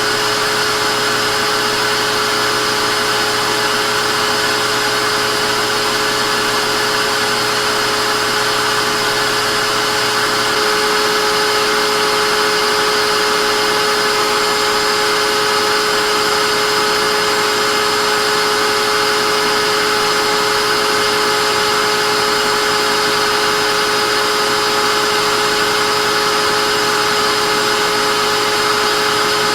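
Vacuum cleaner running steadily: a constant motor whine with several fixed tones over a rushing of air. The tone shifts slightly about ten seconds in, as a low hum drops out.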